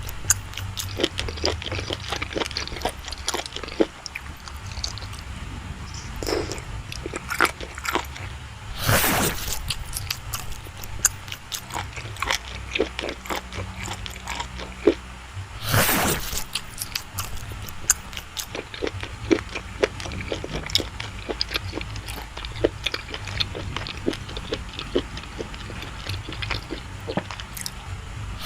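Close-miked chewing of soft, creamy cake: many small wet mouth clicks and smacks, with two louder, longer mouth sounds about nine and sixteen seconds in.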